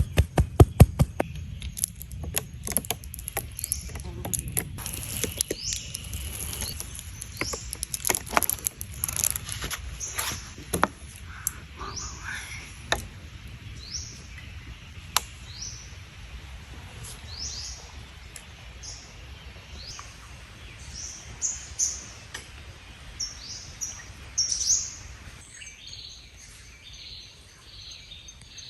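Birds chirping in short, repeated high calls. In the first half a run of sharp knocks and clicks is heard, densest near the start, and these are the loudest sounds.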